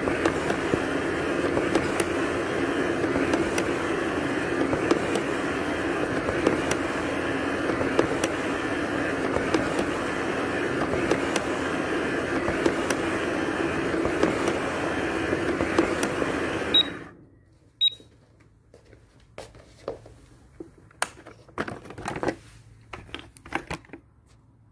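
Small robot vacuum cleaner running, its motor and brushes giving a steady whirring hum with faint ticks. About seventeen seconds in it cuts off suddenly, and two short high beeps follow. After that come faint clicks and knocks, as of the machine being handled.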